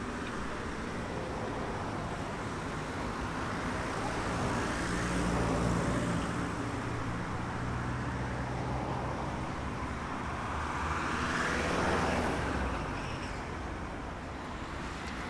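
Road traffic noise: a steady rumble with a low hum that swells as vehicles pass, about five seconds in and again around twelve seconds.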